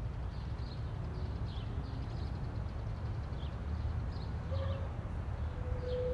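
Outdoor ambience: scattered short bird chirps over a steady low rumble. A steady tone sets in near the end.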